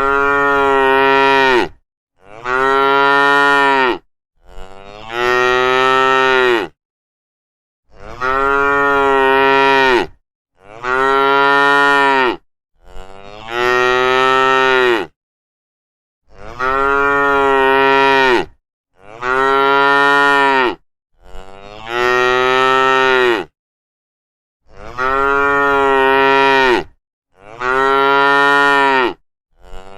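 Cattle mooing: long drawn-out moos of about two seconds each, one after another in sets of three, with brief silent gaps between the sets.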